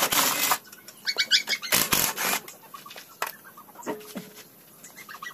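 A cordless impact wrench running in two short bursts as it spins off wheel lug nuts, with birds chirping between the bursts.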